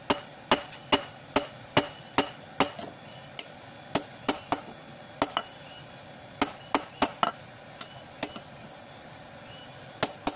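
A hand hammer striking a hot golok machete blade held in tongs on a steel anvil: sharp metallic blows about two a second, each with a brief ring. The blows thin out in the second half, with a pause of over a second before two last strikes near the end, as the heated blade is reforged.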